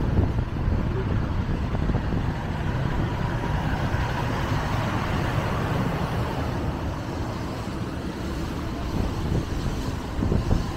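City street traffic passing: a steady low rumble of engines and tyres, with one vehicle swelling past around the middle.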